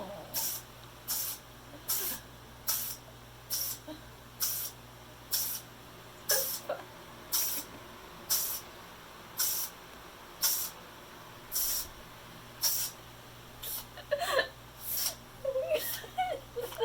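A kitten sneezing again and again in a long sneezing fit: about eighteen short sneezes, roughly one a second.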